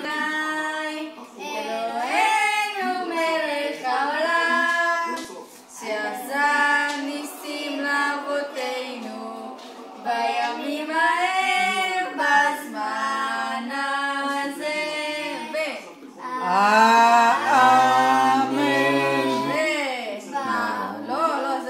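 Two children singing a Hanukkah candle-lighting song together, with held notes.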